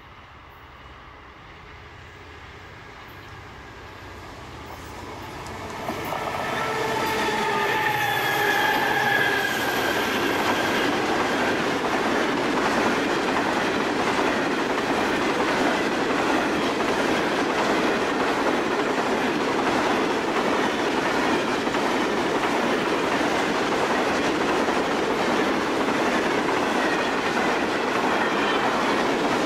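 Broad gauge grain train approaching and passing at speed. The two G-class diesel locomotives grow steadily louder over the first six seconds and go by with a brief, slightly falling pitched tone. Then a long rake of grain hopper wagons rolls past with steady, loud wheel-on-rail noise.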